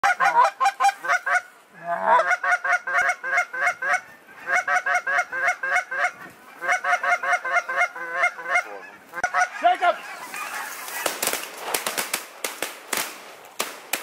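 A large flock of geese honking, many overlapping calls in rapid bursts. After about ten seconds the honking gives way to a rushing noise with a string of sharp clicks.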